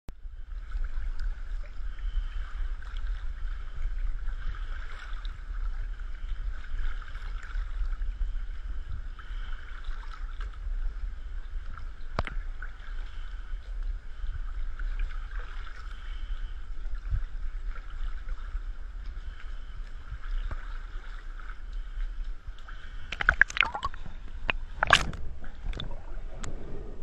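Sea water sloshing and gurgling around a camera held at the surface, heard muffled under a steady low drone. About 23 seconds in, a few sharp, loud splashes as the camera dips under the water.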